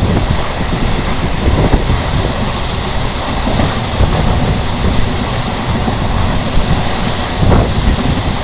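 Moving train heard from on board: a steady rumble and rush of the wheels running on the track, with irregular knocks throughout.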